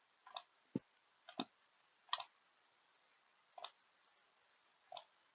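Faint computer mouse clicks, about six of them, spaced unevenly.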